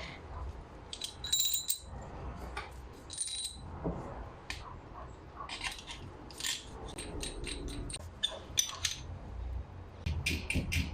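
Small metal parts clicking and clinking as a vibration pump's vibro-pair is taken apart to remove its steel adjusting washers, with two short ringing clinks of metal on metal.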